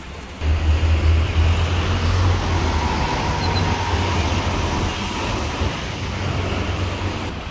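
Road traffic noise: a heavy low rumble that sets in abruptly about half a second in and slowly eases off, under a steady hiss.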